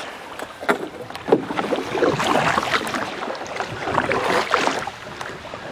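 Canoe paddles dipping and pulling through calm river water, with splashing and dripping that grow busier in the middle of the stretch. Two sharp knocks come in the first second and a half.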